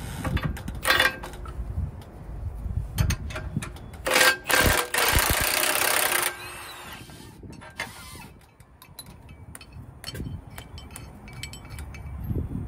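Milwaukee M18 half-inch cordless impact wrench hammering on a semi truck's torsion bar bolt: a short burst about a second in, then a longer rattling run from about four seconds to about six, with light tool clinks in between.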